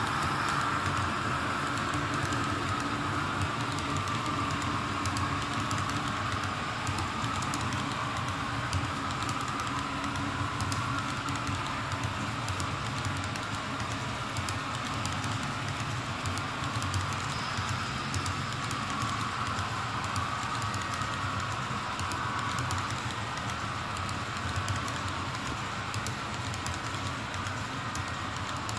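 Model autorack cars rolling steadily along the track: a continuous light rumble with fine, rapid clicking of the small wheels over the rails.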